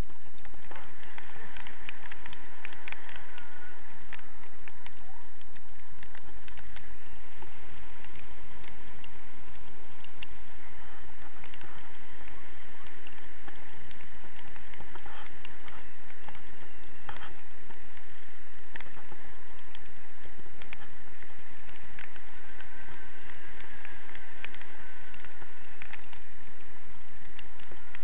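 Airflow rushing steadily over an action camera's microphone in flight under a tandem paraglider, with many small clicks and rattles from the camera and its pole mount.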